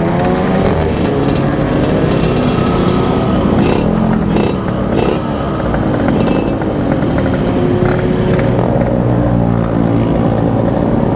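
Yamaha RX-King's 135cc two-stroke single-cylinder engine accelerating hard, its pitch climbing and falling back at each of several upshifts.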